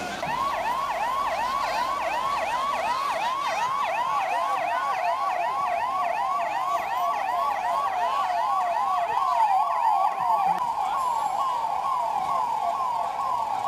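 Emergency vehicle siren in a fast yelp, about three quick up-and-down pitch sweeps a second, held steady.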